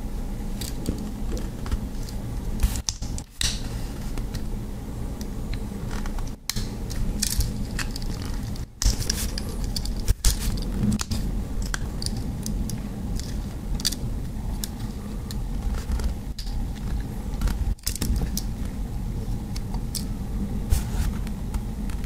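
Victorinox Compact (1.3405) Swiss Army knife being handled, its metal tools giving irregular clicks and scrapes, over a steady low rumble.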